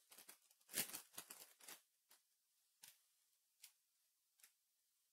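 Faint handling of trading cards and a foil pack wrapper: a short cluster of soft rustles and clicks about a second in, then a few isolated soft ticks.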